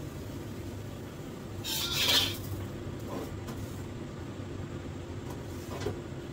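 Steady low hum of kitchen background with a gas burner lit under an empty wok. About two seconds in there is a brief clatter of kitchenware being handled, and a couple of light knocks follow later.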